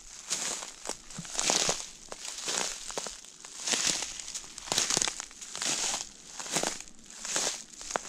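Footsteps crunching through dry fallen leaves and pine needles on a forest floor, an even walking pace of about one step a second.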